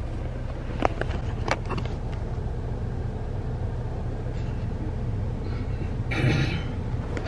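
A car's steady low running hum heard from inside the cabin as it sits pulled up, with two sharp clicks about a second in and a short rustling burst about six seconds in.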